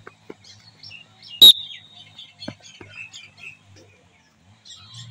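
One short, very loud whistle blast about a second and a half in, of the kind used to signal a training drill. Faint chirps and a few light thuds are scattered around it.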